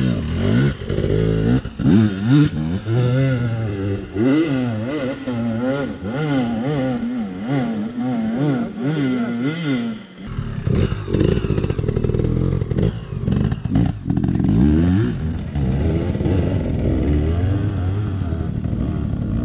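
Dirt bike engines revving, the pitch rising and falling quickly over and over. About halfway through the sound changes abruptly to a lower, rougher engine note, a bike climbing the steep dirt hill.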